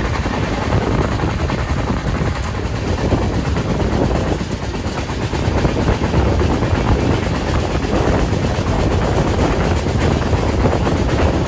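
Passenger train running at speed, heard from on board: a steady, loud rumble of wheels on the track.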